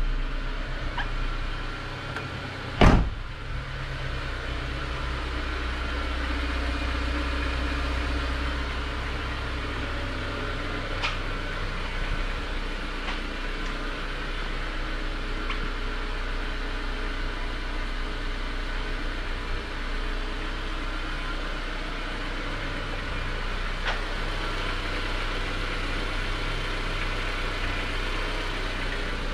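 A car door shutting once with a loud thump about three seconds in, over a steady low hum with a few faint clicks and handling noises.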